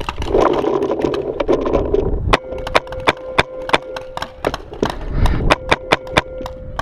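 Paintball guns firing: a rapid, irregular string of sharp pops, several a second.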